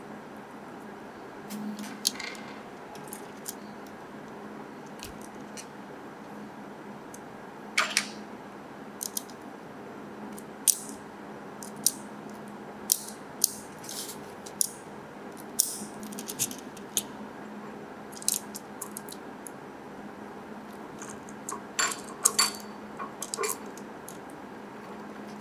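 Hard plastic parts and small metal screws of a Tamiya Mini 4WD kit clicking and tapping as they are handled, fitted and screwed together with a small screwdriver: scattered sharp clicks, some in quick clusters, over a faint steady hum.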